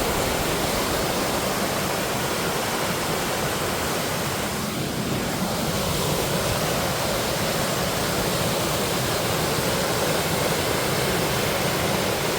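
Steady, even rush of fast-flowing water, as from a waterfall or torrent close by.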